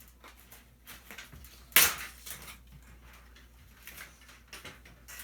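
Hand-handling clatter of parts being taken apart: small scattered clicks and taps, with one sharp knock a little under two seconds in.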